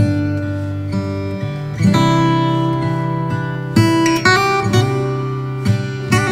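Background instrumental music: acoustic guitar playing plucked and strummed chords, with a new chord every second or so.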